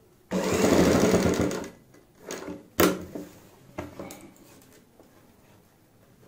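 Sewing machine stitching in one quick run of about a second and a half, then stopping. A couple of shorter, quieter sounds and a sharp click follow a second or so later.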